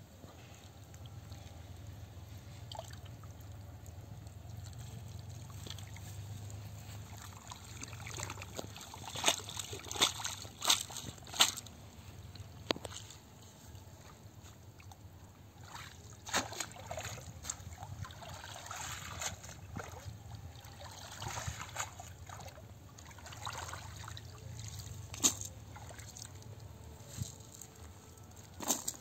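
Water sloshing and trickling as a wet cast net is hauled out of a shallow muddy pond and drips on the bank. Sharp clicks and knocks cut through, a close cluster about a third of the way in and more scattered later.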